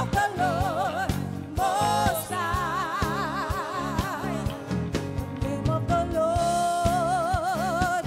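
Live gospel praise music: a woman's voice holds long, wavering notes with wide vibrato in three wordless phrases, over a band of drums, bass guitar and keyboards.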